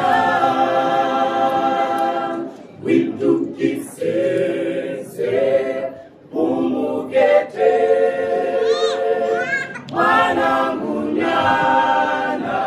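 A small mixed choir of men's and women's voices singing a cappella in parts. The phrases are long and held, with short breaks between them.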